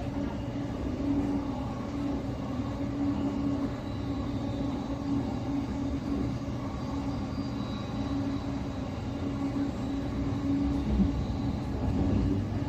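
Interior running noise of a Siemens Desiro City Class 717 electric multiple unit travelling at a steady speed of about 46 mph: a continuous rumble of wheels on rail with a low hum that swells and fades.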